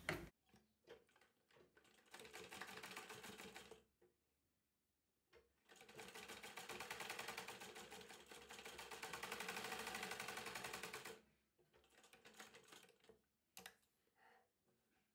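Sewing machine stitching in two runs of rapid, even strokes: a short run about two seconds in, then a longer one of about five seconds. A few light clicks follow.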